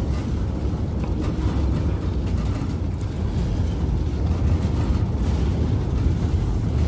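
Heavy steel sliding gate rolling along its ground track as it is pushed by hand: a steady low rumble.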